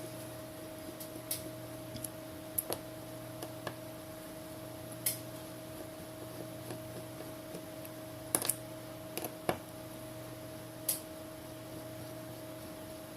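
Scattered small, sharp clicks and taps of a precision screwdriver and tiny screws against a smartphone's internal plastic covers, a few spread out and a cluster of louder ones about two-thirds of the way in. A steady electrical hum runs underneath.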